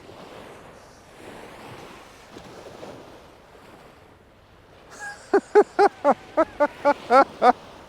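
Wind and surf in a faint steady hiss, then about five seconds in a man laughing in a quick run of about nine short bursts.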